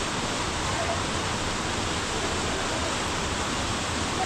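Steady rush of a waterfall and stream of water falling through a gorge.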